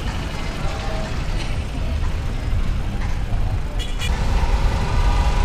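Steady low rumble of wind buffeting the microphone on a moving bicycle, with tyre and road noise underneath.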